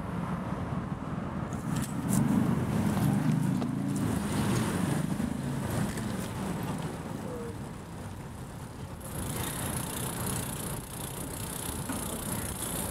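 Road traffic heard from a bicycle: a motor vehicle's engine running close by, loudest a couple of seconds in, with a higher hiss joining near the end.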